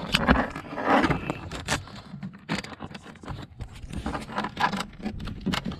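Scraping and rustling with irregular clicks and knocks as the brake-controller wiring cable is handled and worked up under the plastic dashboard trim.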